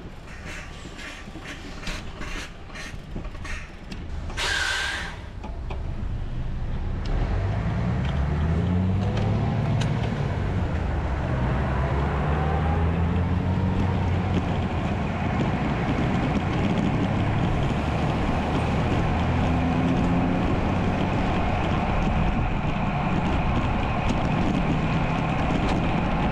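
A heavy motor vehicle's engine speeding up and then running steadily, close by on the road. Before it come a series of clicks and a short hiss.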